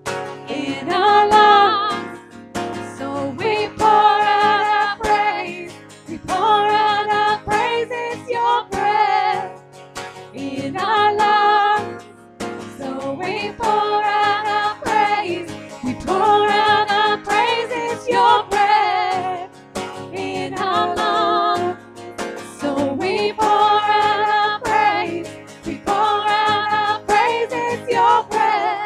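Two women singing a worship song over a strummed acoustic guitar, in sung phrases of about two seconds with short breaks between them.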